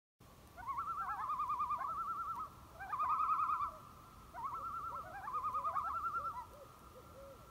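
Bird calls: a rapid, wavering call in three phrases, with a steady held whistle-like note beneath.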